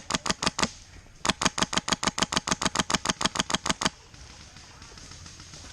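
Airsoft gun firing in rapid strings, about eight shots a second: a short string that stops just under a second in, then a longer one of about two and a half seconds.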